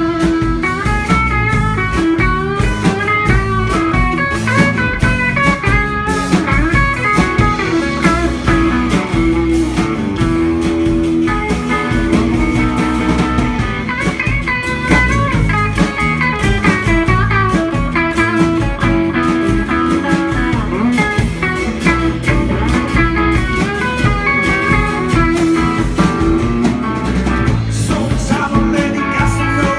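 Live band playing a blues-rock song on acoustic guitar, electric guitars and drums, continuously and at full volume.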